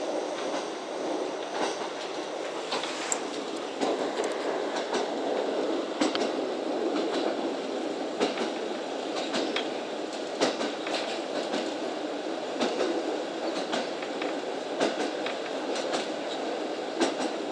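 Running noise heard inside a KiHa 40 series diesel railcar at speed: a steady rumble of steel wheels on the rails, with sharp clicks and clacks every second or two, unevenly spaced, as the wheels pass over rail joints.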